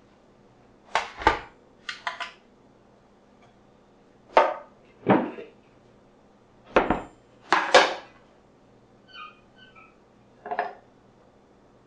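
Kitchen things being set down one after another on a stainless steel counter and a wooden cutting board: about ten sharp knocks and clatters, mostly in pairs, from a digital kitchen scale, a small glass and a plastic tub of flour with its lid. A few faint short high tones come around nine seconds in.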